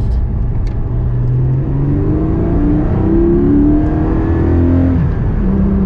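Porsche 718 Cayman engine accelerating, its pitch climbing steadily for about three seconds, then dropping back as the gearbox shifts up near the end.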